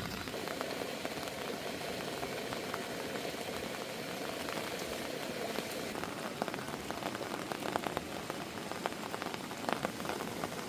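Heavy rain falling steadily: a dense hiss with many separate drops ticking on a surface.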